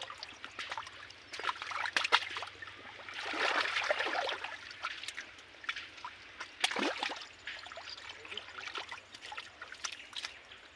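Shallow muddy water sloshing and trickling, with irregular splashes, as hands grope through it for fish.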